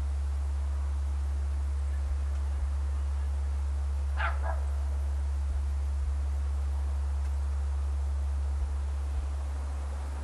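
A dog barks once, about four seconds in, over a loud steady low hum.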